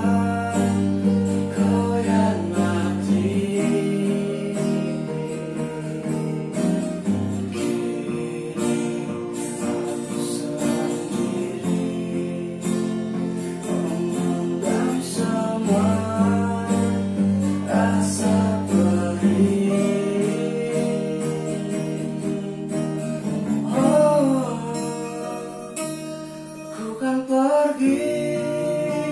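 Three acoustic guitars strummed and picked together, with a man singing over them.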